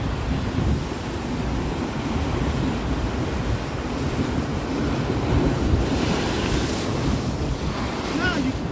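Ocean surf breaking and washing over shore rocks, with wind buffeting the microphone; a bigger wave crashes about six seconds in.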